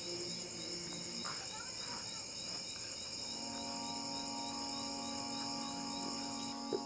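Crickets chirping steadily in a fast, even rhythm. About halfway through, a sustained low musical drone comes in underneath.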